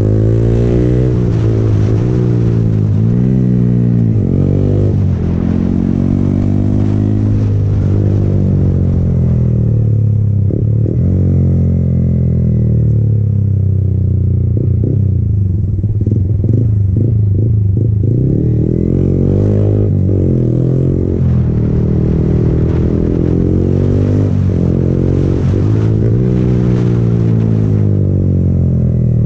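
Yamaha motorcycle engine pulling through the gears, its pitch rising and falling again and again as the rider accelerates, rolls off on the engine and shifts. Quick dips and climbs in pitch, several in the first few seconds and more near the end, fit downshifts with rev-matching throttle blips.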